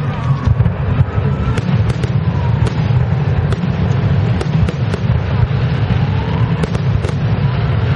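Fireworks display: aerial shells bursting in a continuous low rumble, with many sharp cracks and pops scattered across it.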